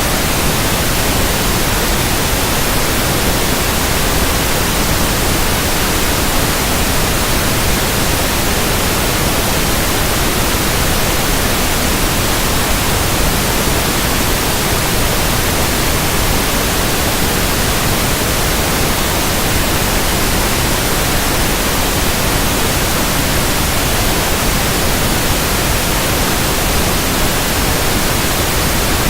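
Pink noise test signal: a constant, even hiss that covers everything from deep bass to high treble without changing. It is played as a test signal for checking a speaker.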